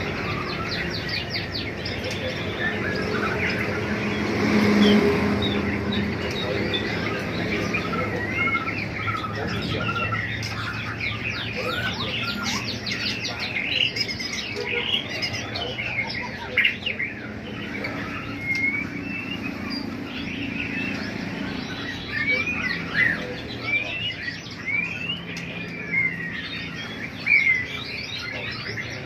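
Many small caged birds chirping and calling at once, a dense overlapping chorus of short high chirps and whistled sweeps.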